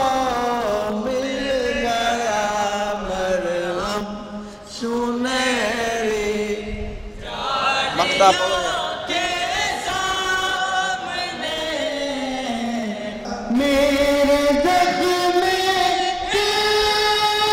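Men chanting a naat, an Urdu devotional poem, in long held notes that slide up and down, sung into a microphone.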